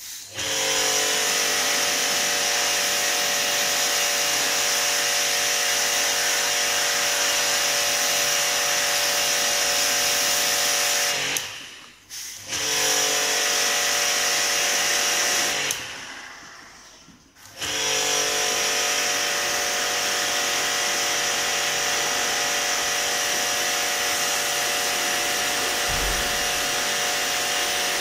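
A small electric motor running steadily with a whine, cutting out twice, about twelve seconds in and again around sixteen seconds, winding down each time before starting up again.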